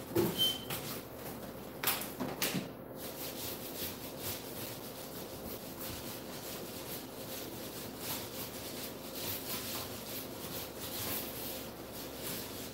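Paint roller rolling thick black screen paint onto a wall in repeated soft rubbing strokes, with a few knocks in the first three seconds.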